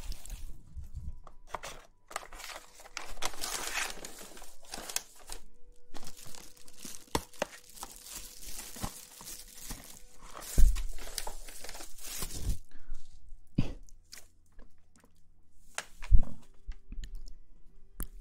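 Close-up ASMR rustling and crinkling, coming in uneven spells with short pauses, dotted with sharp little clicks and a few soft thumps.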